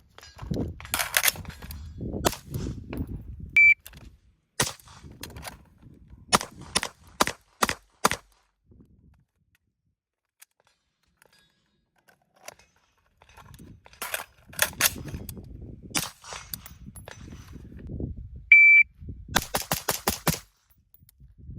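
Daniel Defense MK18 short-barrelled 5.56 mm rifle firing: single shots and quick strings of rapid shots, with a pause of several seconds in the middle. A short, steady high tone sounds twice between the strings.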